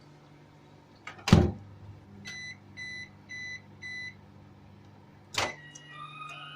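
Microwave oven ending its cooking cycle: a loud clunk, then four short evenly spaced beeps, then another sharp click near the end, over a steady low hum.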